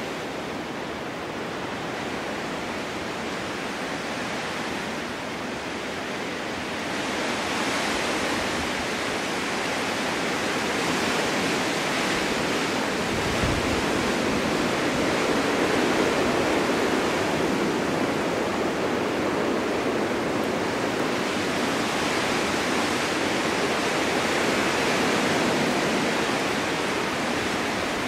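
Snowstorm wind blowing as a steady rushing that swells about seven seconds in, then rises and falls in slow gusts.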